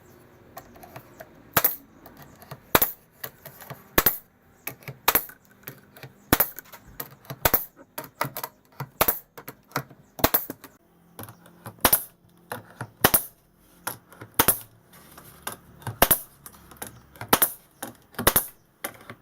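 Sharp strikes on timber, the loud ones about once a second with lighter taps between: nails being driven into the boards of a wooden nest box.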